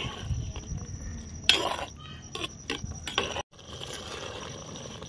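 Metal ladle stirring a thick curry in a clay cooking pot, clinking and knocking against the pot several times; the loudest knock comes about a second and a half in. A sudden break follows, then a steady low hiss.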